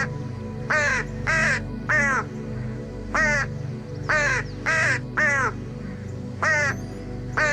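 A bird giving about ten short, harsh calls in a row, each falling in pitch, over steady background music.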